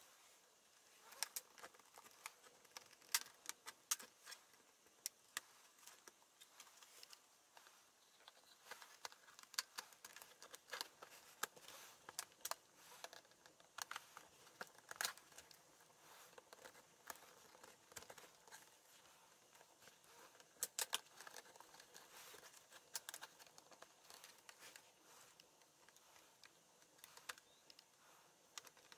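Plastic snap-fit clips of an HP Pavilion laptop's top case clicking and snapping loose as a plastic pry tool and fingers work along the seam between the keyboard deck and the base. The snaps are sharp and irregular, with handling clatter between them.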